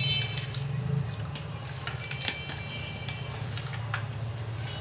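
A spoon stirring raw chicken pieces through a thick yogurt marinade in a plastic tub: soft wet squishing with scattered light clicks of the spoon against the plastic, over a low steady hum.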